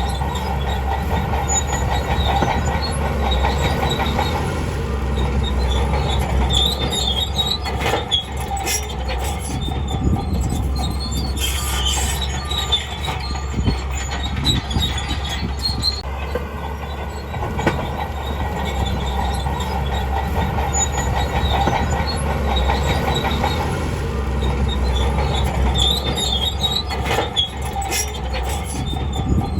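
Crawler bulldozer working: its diesel engine drones steadily under the squealing of its steel tracks, with scattered metallic clanks.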